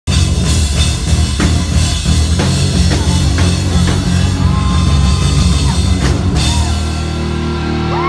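Live rock band playing loud, with pounding drums and guitars. About six seconds in the drums stop on a held chord, and the crowd starts whooping near the end.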